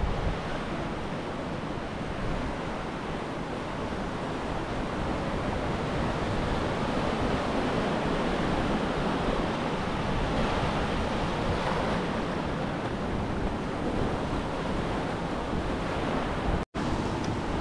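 Small sea waves washing on a sandy beach, a steady surf wash, with wind rumbling on the microphone. The sound cuts out for a split second about a second before the end.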